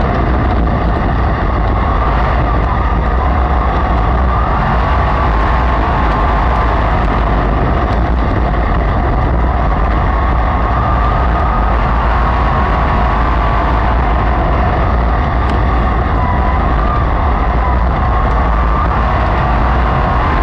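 Racesaver sprint car's V8 running flat out in a dirt-track race: a steady, loud engine drone whose pitch wavers slightly up and down over a heavy low rumble.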